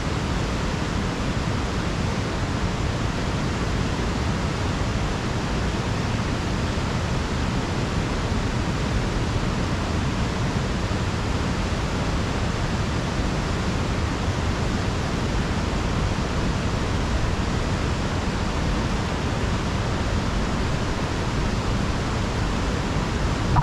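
Steady rushing of a fast-flowing river, an even noise that holds the same level throughout.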